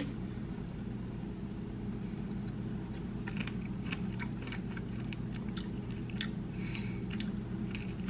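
A person chewing a mouthful of berries in almond milk, with soft wet mouth clicks from about three seconds in, over a steady low hum.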